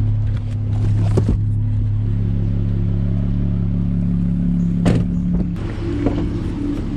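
Car engine idling with a steady low hum, broken by a few short knocks and clicks.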